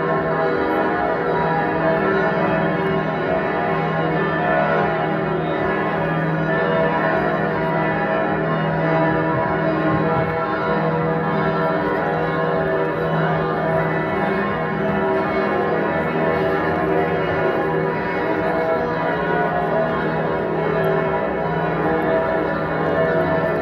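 Many large church bells of St. Stephen's Cathedral ringing together in a full, continuous peal, their tones overlapping without a pause.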